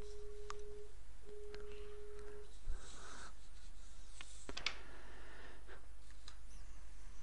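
A steady single-pitched beep sounds twice, the first about a second long and the second a little longer. A few sharp computer-mouse clicks follow, over a low steady electrical hum.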